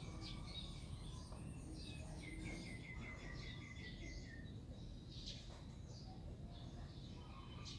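Small birds chirping and calling, several overlapping, with a quick run of repeated notes about two seconds in, over a steady low rumble of background noise.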